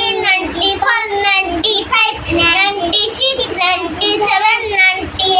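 A young boy singing in a high child's voice, without pause.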